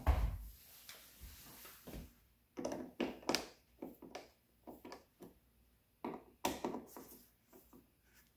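Screws being hand-tightened through the plastic base plate of a Google Nest Thermostat E into the wall: irregular short clicks, scrapes and taps of the screwdriver and hand against the plate. A low thump at the very start.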